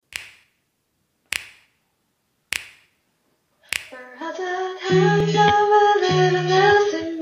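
Four finger snaps about a second apart counting in the song, then a young woman sings the opening line in English, with low accompaniment notes coming in about a second after her.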